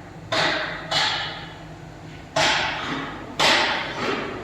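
Hammer blows, four sharp strikes at uneven intervals, each ringing and dying away over about a second.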